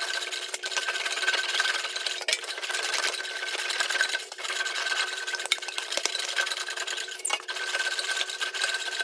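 English wheel rolling a sheet-metal body panel back and forth between its upper wheel and a high-crown lower anvil, stretching the metal to raise a crown. A steady rolling hiss with a thin ringing tone, dipping briefly every second or two.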